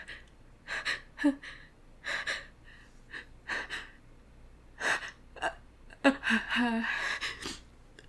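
A woman's pre-sneeze gasps: a run of short, sharp catching breaths as a sneeze builds and is held back with her nose pinched, with a few brief voiced catches about six seconds in.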